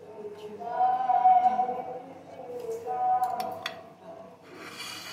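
Singing: a voice holding long, slightly wavering notes, with a few light clicks about three and a half seconds in.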